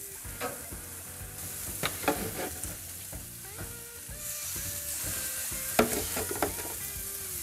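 Raw chicken wings sizzling as they are laid skin-side down on hot gas-grill grates, with sharp clicks of metal tongs against the grate. The sizzle grows louder about four seconds in as more wings go down.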